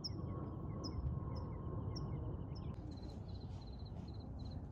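Crickets chirping in the open evening over a low steady background noise. At first there are rows of short high chirps. About three seconds in the sound changes to a single even pulsed chirp, repeating about three times a second.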